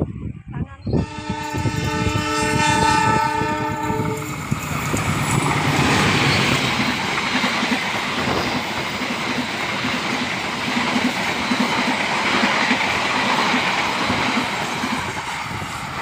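The Argo Wilis express train's locomotive horn sounds a steady chord of several notes for about three seconds. Then the diesel-hauled train passes close at speed, a loud continuous rush and rumble of wheels on the rails.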